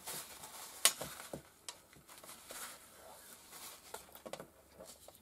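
Faint handling noises of paper and small tools on a cutting mat: soft rustles with a few light knocks, the sharpest about a second in.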